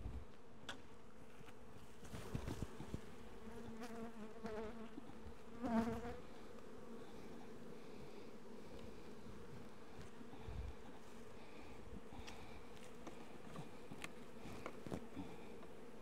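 Honey bees buzzing around an opened hive: a steady hum, with single bees flying close past a few seconds in, their buzz rising and falling in pitch as they pass. A few light knocks from hive frames being handled and set into a box.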